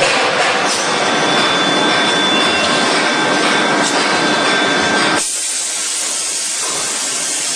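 Steady, dense noise of forging-line machinery running. About five seconds in it cuts off abruptly and gives way to a quieter, thinner hiss.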